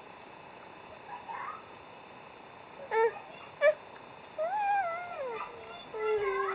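A dog whining: two short yelps about halfway through, then two longer wavering whines that slide down in pitch, over a steady high insect drone.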